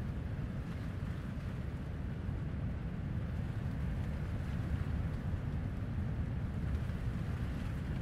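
Steady wind blowing across the dunes, with a low rumble where it buffets the microphone, and the wash of distant surf underneath.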